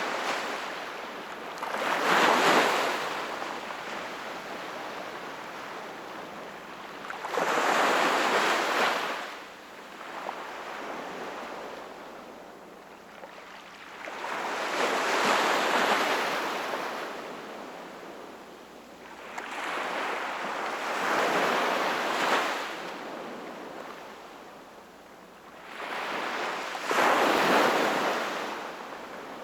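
Sea waves breaking and washing onto the shore, each one a loud swelling rush about every six seconds, with a softer hiss of surf between them.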